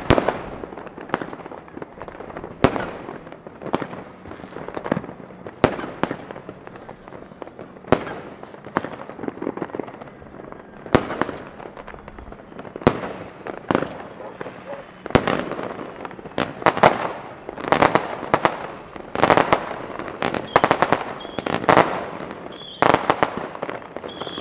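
Fireworks and firecrackers going off, a string of sharp echoing bangs at irregular intervals, about one a second at first, then coming thick and fast in clusters from about two-thirds of the way in.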